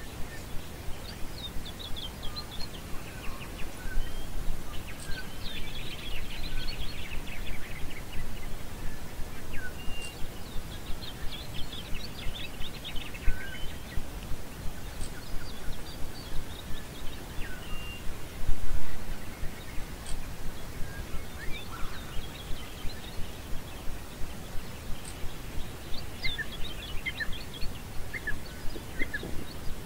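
Wild birds calling in the open, with quick chirps and rapid trills coming in bursts, over low wind noise. Soft regular pulses about every 0.7 seconds run underneath, with a brief louder rush of noise a little past the middle.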